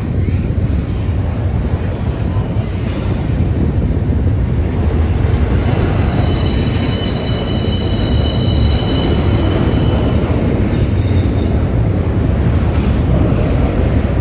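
Intermodal freight train's loaded container cars rolling past, a loud steady rumble of wheels on rail. About six seconds in, the wheels start a high, several-toned metallic squeal that holds for about four seconds and returns briefly a moment later.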